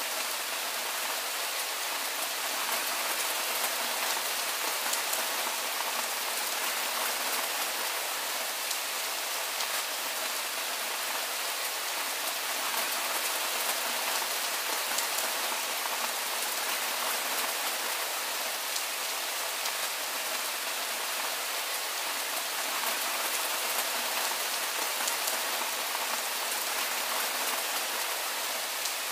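Steady soft rain falling: an even hiss of many small drops, mostly high-pitched with little low rumble.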